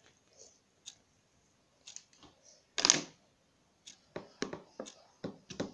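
Slime being kneaded and squeezed by hand in a plastic tub, making short sticky clicks and pops, with one louder squelch about three seconds in and quicker clicks near the end.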